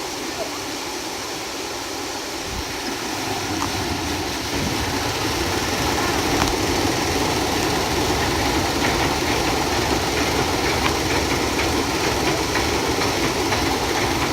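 Water-powered sawmill machinery running steadily as it saws through a log, with a clattering rumble and scattered clicks and knocks. It grows louder and heavier a few seconds in, as the mill takes up the load.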